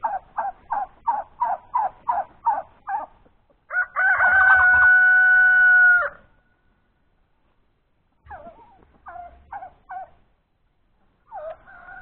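Domestic fowl calling: a fast run of about a dozen short calls, a little over three a second, then a rooster crows, ending in one long held note that is the loudest sound. A few more short calls follow, and another call begins near the end.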